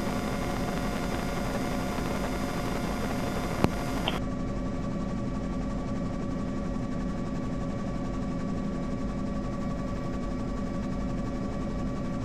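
Helicopter cabin noise: the steady drone of the turbine engine and rotors, with one sharp click about three and a half seconds in.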